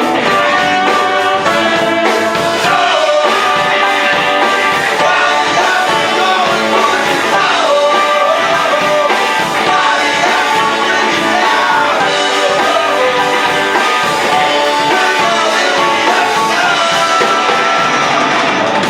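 Live band music: a horn section of tenor saxophone and trombones over electric guitar, keyboard, bass and drums, loud and steady, with some singing.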